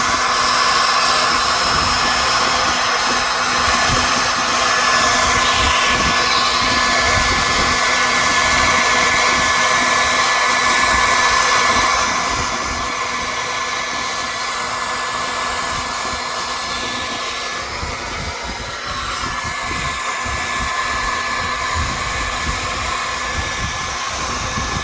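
Handheld hair dryer running steadily, its fan whine and rush of air held close to a computer processor to heat it. The blowing gets somewhat softer about halfway through.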